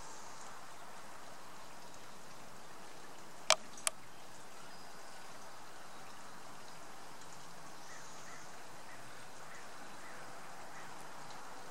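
Steady trickle of running water from the pond. Two sharp clicks about half a second apart break it a few seconds in.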